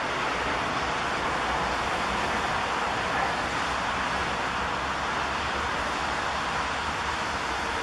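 Steady rushing noise of a Bombardier CRJ-900 regional jet's two rear-mounted turbofan engines on final approach.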